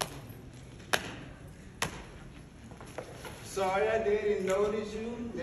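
Four sharp percussive hits about a second apart, then voices begin singing a held, wavering tune about two-thirds of the way through.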